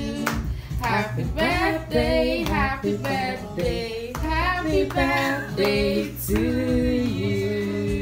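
A song playing: a singing voice over a steady bass line, with hands clapping along.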